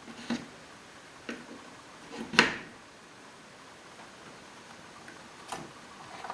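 Plastic parts of a Roomba 564 Pet robot vacuum being handled and fitted back together during reassembly: about five separate sharp clicks and knocks, the loudest about two and a half seconds in.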